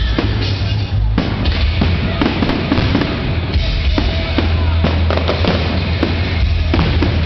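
Fireworks bursting in many sharp, irregular bangs, with music playing underneath.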